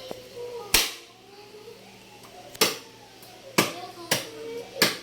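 Knife chopping through chicken: five sharp, irregularly spaced chops.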